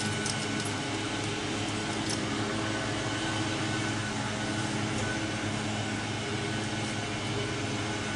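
A steady machine hum with a low, even pitch, like a motor-driven fan or air-conditioning unit, with a couple of light clicks about half a second and two seconds in.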